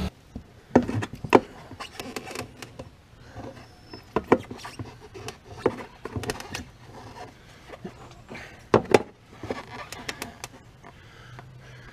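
A metal tire iron clinking and knocking against an ATV's deep-dish rim as the tire bead is pried at: a string of irregular sharp clicks and scrapes, with two louder knocks about a second in and a close pair near nine seconds.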